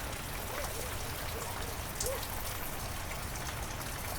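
Heavy rain falling steadily, with individual drops pattering and one louder drop about two seconds in. Faint short chirps sound in the background.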